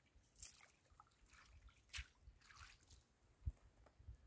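Faint small splashes and drips of water as a hand dips in an ice-fishing hole in a frozen lake, with a single low thump about three and a half seconds in.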